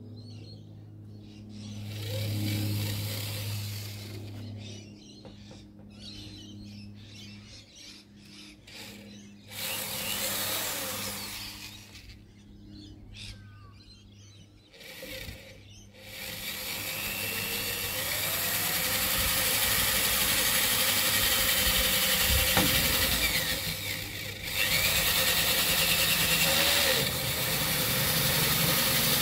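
Power drill boring holes through the sheet-metal front guard of a Ford Courier ute for snorkel mounting holes: three short bursts of drilling, then a long continuous run over the second half.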